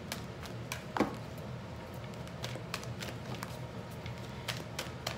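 Oracle cards being shuffled and handled: a run of light, irregular clicks and flicks, with one sharper snap about a second in, over a low steady hum.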